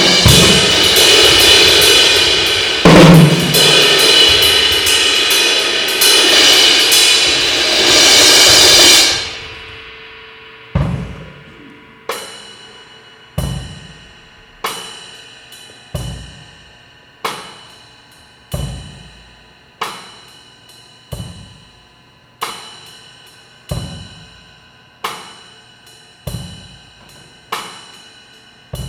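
Drum kit played live: loud cymbal crashes and busy drumming with a heavy hit about three seconds in, stopping suddenly about nine seconds in. After that come single drum strikes at a slow steady pulse, about one every second and a quarter, each ringing out.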